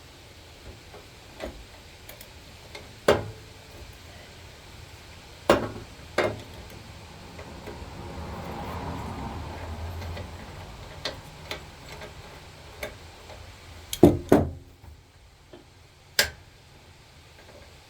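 Scattered metal clinks and knocks of hand tools and parts being handled while fitting an idler pulley to the mower deck, the loudest a quick double knock about two-thirds of the way through. A softer, longer noise swells in the middle.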